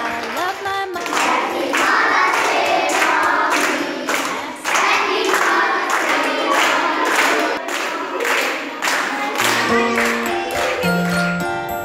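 Group singing with steady rhythmic hand clapping, about two claps a second. Near the end it gives way to a tinkling tune of clear single notes.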